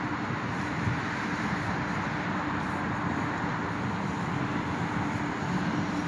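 Steady road traffic on a busy multi-lane road: a continuous rush of tyres and engines, with a steady low hum joining about four seconds in.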